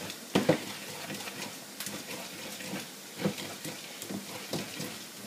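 Wooden pestle grinding and mashing vegetables in a ridged earthenware grinding bowl: irregular rubbing and scraping with a few short knocks, the loudest about half a second in and again just past three seconds.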